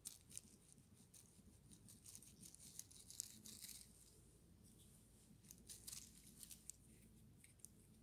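Faint crackling and rustling of dry grass, larch needles and leaves as a knife cuts a mushroom's stem at ground level and a hand works it free, in small clusters of light clicks.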